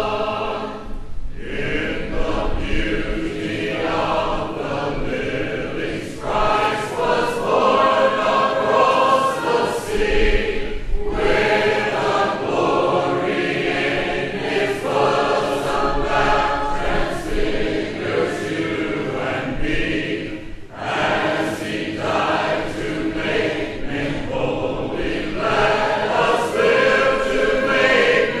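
A choir singing slow sustained chords in long phrases, each a few seconds long, with short breaks between them.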